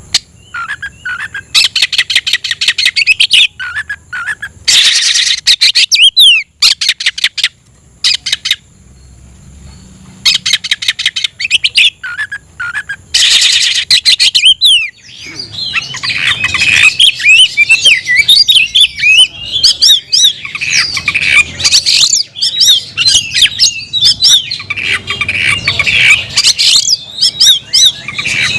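Oriental magpie-robin (kacer) singing loudly. First come bursts of rapid, harsh rattling notes with pauses between them. From about halfway it breaks into a dense, continuous run of quick, varied whistles, the challenging song of a male in top form calling out a rival.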